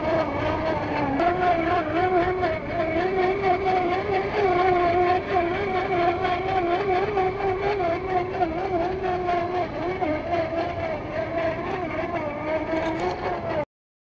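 Redcat 35T brushed electric motor and gearbox of a 1/10-scale RC rock crawler whining steadily, the pitch wavering with the throttle as it crawls over rocks; the sound cuts off suddenly near the end.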